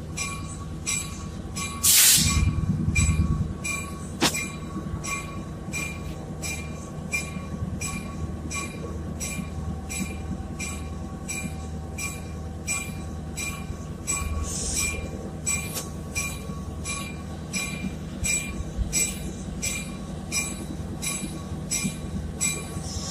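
A train running with a low rumble while a bell rings steadily, about two strokes a second. There is a brief loud hiss about two seconds in.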